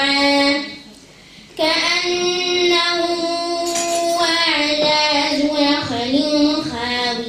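A girl chanting Quran recitation in tajweed style, drawing out long, melodic held notes. She breaks off for a breath about a second in, then resumes in one long sustained phrase.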